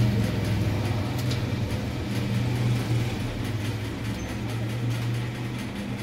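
A steady low machine hum that eases off near the end, under faint rustling and scraping of hands working dry breadcrumbs in a steel bowl.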